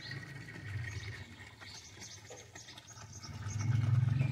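Birds chirping in the background over a low hum; about three and a half seconds in, a louder low, drawn-out drone sets in and keeps going.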